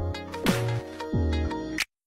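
Background music with a steady beat, cutting off abruptly to silence near the end.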